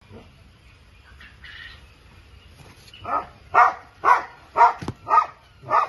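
Kittens mewing: a faint mew, then from about three seconds in a run of six short, loud mews about two a second.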